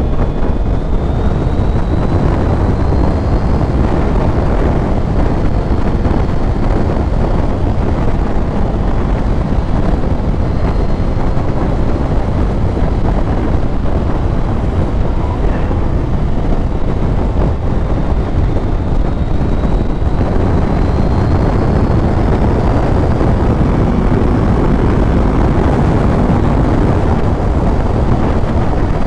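Heavy wind noise buffeting the microphone of a motorcycle rider at speed, with the bike's engine running underneath. A faint high whine rises slowly in pitch a few times.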